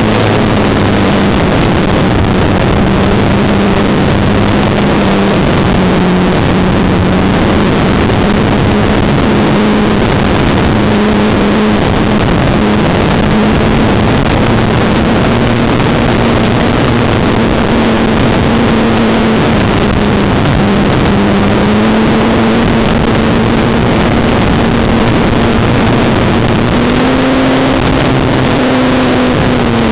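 Loud, steady rush of air over a camera riding on a flying RC model glider, with a faint wavering hum from its motor and propeller that rises in pitch a few seconds before the end.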